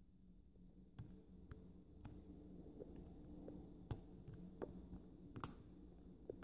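Faint, irregular clicks of a lock pick working the pin stack of an Abus 90/50 stainless steel padlock, about half a dozen spread over the few seconds. The clicking is the pick tapping on the metal as the pins are eased up under light tension, not serrated pins.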